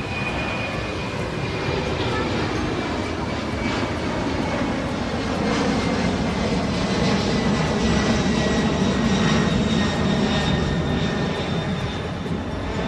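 Pratt & Whitney PW4074 turbofan engines of a Boeing 777-200 heard from inside the cabin: a steady engine rush with a high whine that slowly falls in pitch, the low rumble swelling a little in the middle.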